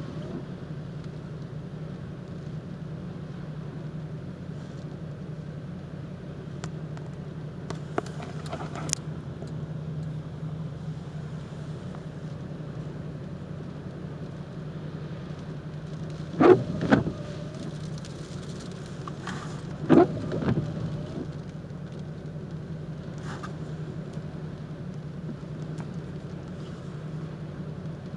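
Steady low hum of a car, heard from inside, over a constant wash of storm wind noise. Two short loud bursts of noise stand out about 16 and 20 seconds in.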